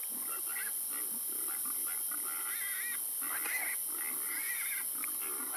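Feral hogs grunting and squealing, many short calls one after another, over a steady high hiss from an ATN thermal riflescope's built-in microphone.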